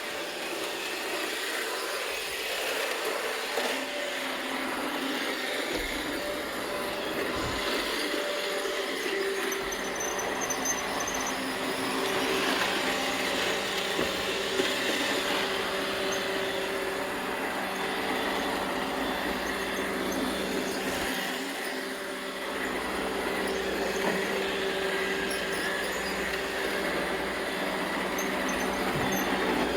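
Robot vacuum cleaners running: a steady motor and fan whir with a few held hums under it.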